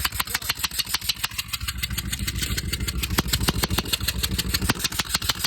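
Ford Triton engine running with a rapid, even ticking, about ten sharp ticks a second, a 'farting' sound suspected to be an exhaust leak.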